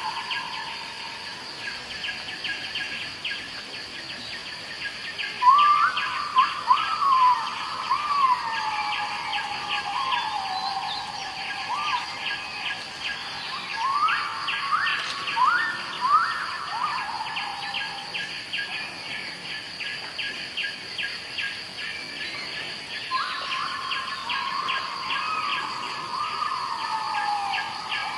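Birds calling in three bouts of loud, sweeping calls that rise sharply and then slide down in pitch. Under them an insect chorus keeps up a steady, fast pulsing trill with a thin, steady high whine.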